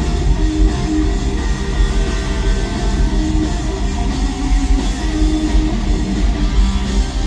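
Live rock band playing loud: electric guitar over bass and a drum kit.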